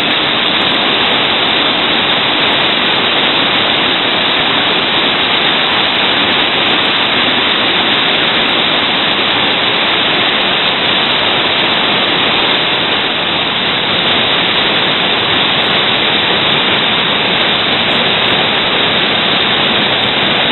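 Loud, steady rush of big whitewater rapids, the river pouring through a large standing wave, with a slight dip in level about two-thirds of the way through.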